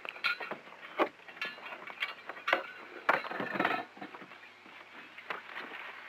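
Knocks, bumps and rustling of gear being handled and stowed in a small boat, with a handful of sharp knocks in the first four seconds and softer rustling after.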